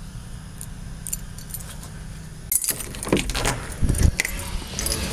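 Keys jangling on a keyring, faint at first, then a burst of rattling and clicking about two and a half seconds in as a key works a brass deadbolt, with a loud knock near four seconds in as the door is unlocked and opened.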